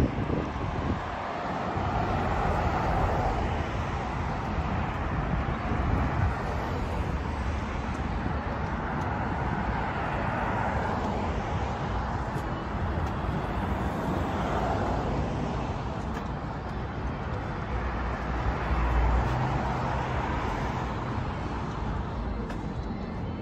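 Road traffic on a busy multi-lane street: cars passing one after another, their tyre and engine noise swelling and fading every few seconds, with a lower engine rumble from a heavier vehicle about three-quarters of the way through.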